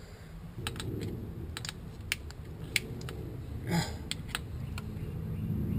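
Hands handling vacuum hoses and fittings in a car's engine bay: scattered sharp light clicks over low handling rumble, with a short rasp about four seconds in.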